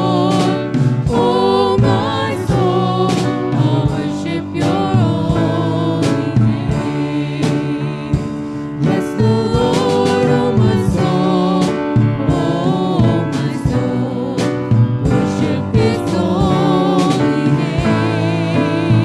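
Live worship band playing a song: a woman and a man singing into microphones over a grand piano and a drum kit with regular drum and cymbal hits.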